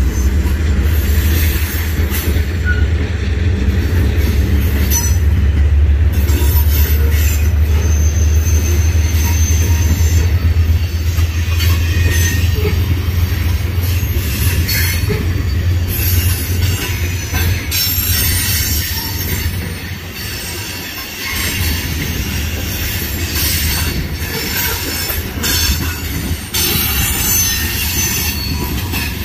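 Freight train of covered hopper cars rolling past, wheels squealing and clacking over the rails. A diesel locomotive's low rumble is strong at first and fades out about halfway through.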